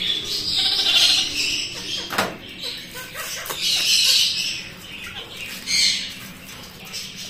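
Rustling and crackling of straw packing and wrapping as a parcel is unpacked by hand, in several uneven surges with a few sharp clicks, with birds calling in the room.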